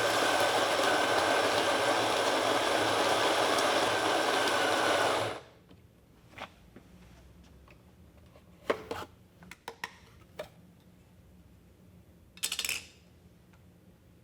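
Solis Scala electric coffee grinder grinding beans, a steady whir that cuts off about five seconds in. Then a few light knocks and taps, and a short rattle near the end.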